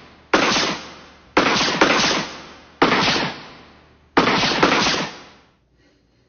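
Four loud, sudden bursts of noise, about one every 1.4 seconds, each cutting in sharply and dying away over about a second, two of them with a second hit close behind.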